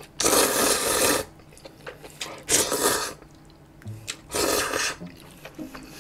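Jjolmyeon noodles slurped up from chopsticks three times, each a loud slurp of under a second, the first the longest.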